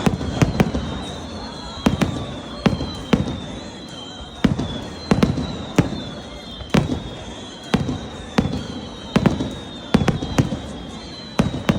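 Aerial fireworks display: a rapid, irregular string of sharp bangs, at times several a second, each trailing off in a low rumble. A high wavering whistle glides down again and again behind them.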